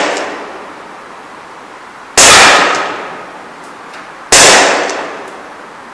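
ASG CZ P-09 gas blowback airsoft pistol fired twice, about two seconds apart. Each shot is loud and sharp, and its echo dies away over about a second.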